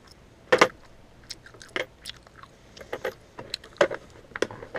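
Metal hand tools and sockets clinking and knocking in a steel toolbox drawer as they are handled: a string of sharp clicks and clanks, the loudest about half a second in.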